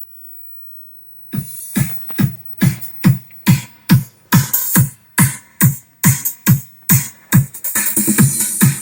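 Electronic dance music with a heavy kick drum beating a little over twice a second, played through a Quad 606 clone amplifier and loudspeakers as a sound test. It starts suddenly about a second in, after near silence.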